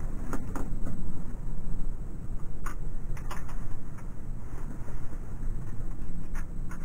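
Clothes and towels being handled and sorted in a plastic laundry basket, with a few light clicks and rustles, over a steady low rumble.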